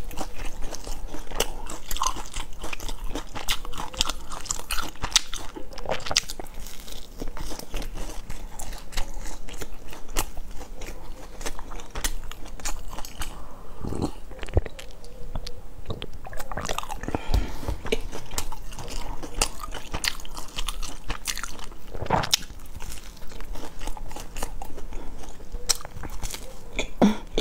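Close-miked biting and chewing of a large baked biscuit: a steady run of small crunching clicks. A few deeper swallowing sounds come about halfway through, while water is drunk.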